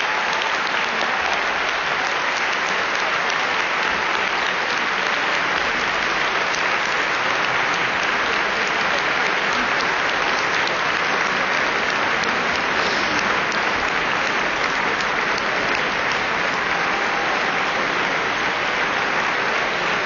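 Audience applause: many people clapping in a dense, steady wash that holds at an even level throughout.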